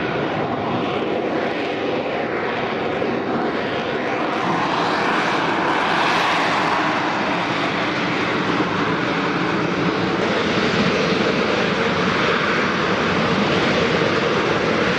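The Rolls-Royce Pegasus turbofan of an AV-8B Harrier II jump jet in slow hovering flight: steady, loud jet noise with a hum running through it, growing a little louder about four seconds in.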